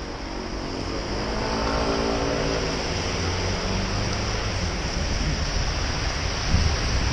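A motor vehicle passing close by on a wet road, its engine note swelling and fading over steady wind noise on the microphone and tyre hiss.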